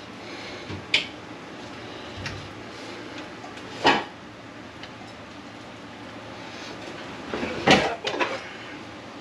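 A few sharp knocks and clinks of kitchen items being handled and set down: one about a second in, a louder one about four seconds in, and two close together near the end.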